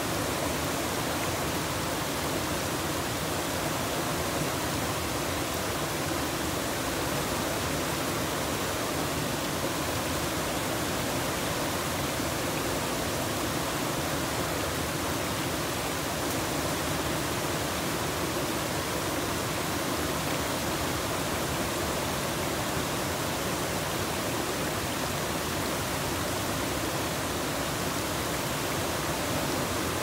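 Small two-tiered waterfall on a river, water pouring over two rock ledges into a churning pool: a steady, even rush of falling water that does not change.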